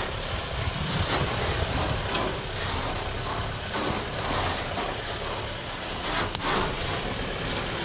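Modified Toyota Hilux 4x4's engine running at low revs as it crawls slowly over rock, a steady low rumble, with a single sharp click about six seconds in.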